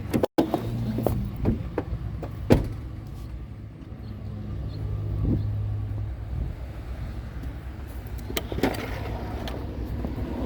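A vehicle engine idling steadily, with a few sharp knocks spread through.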